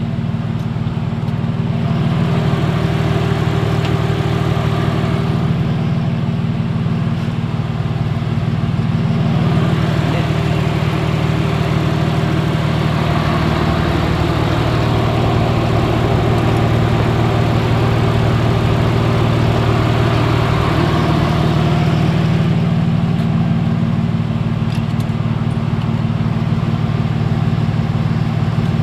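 Audi C5 3.0 V6 engine idling steadily, with a fuller rushing noise swelling over the idle through the middle stretch.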